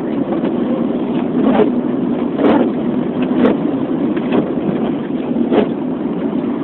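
Steady road and engine noise heard inside a car's cabin, with a brief swish about once a second.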